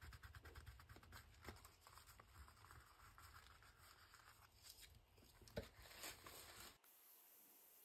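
Near silence with faint rubbing of fingers smoothing glued paper flat and a couple of light clicks; about seven seconds in it turns to a steady faint hiss.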